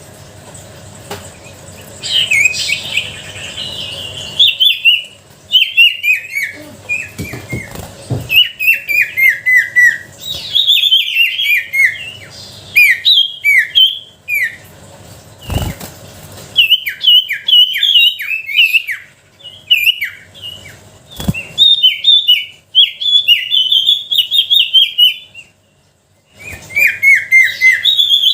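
Golden-bellied gerygone (sirtu) singing: phrases of quick, thin, falling whistled notes, repeated again and again with short pauses between them. Two brief knocks come partway through.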